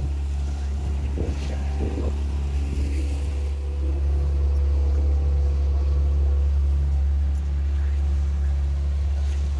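Trophy motorboat's engine running steadily underway: a constant low drone, with wind buffeting the microphone.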